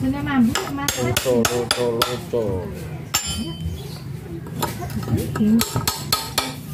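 Hammer blows on a steel punch set against the rusted impeller of an irrigation water pump (Alkon-type), knocking it to free it from its shaft: a run of sharp metal-on-metal clanks, quick at first, then a pause, then more strikes near the end.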